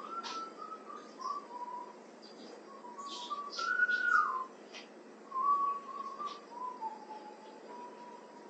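A person whistling a slow, wandering tune, with a few light clicks and knocks from work going on.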